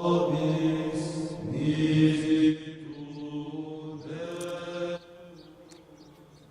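Church chant: voices holding long, steady notes, dropping sharply in level about five seconds in.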